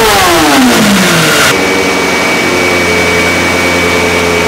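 Kawasaki ZX-6R 636 inline-four comes off full throttle at the top of a dyno power run after an ECU remap. The revs fall steeply for about a second and a half, then the engine runs steadily at low revs with a steady high whine.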